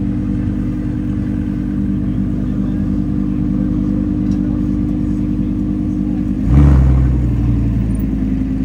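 Lamborghini Huracán's V10 engine idling steadily, then a single short rev about six and a half seconds in, after which it drops back toward idle.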